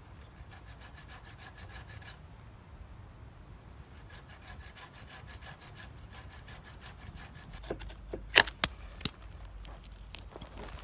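Small hand pruning saw cutting through a dead tree branch in fast, even strokes, in two spells with a pause between. A few loud, sharp knocks follow about eight seconds in.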